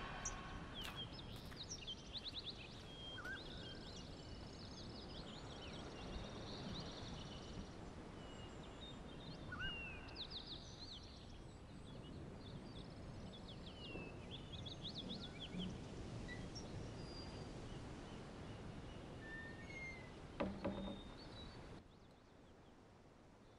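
Birds chirping faintly over a low, steady outdoor background hiss, with a brief knock near the end before the sound cuts out suddenly.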